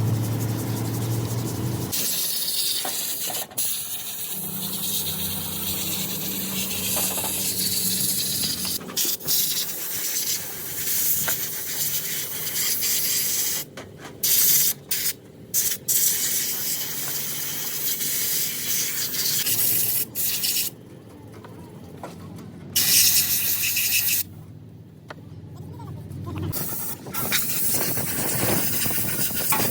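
A loud, hissing spray jet, cut off abruptly several times, over a steady low hum.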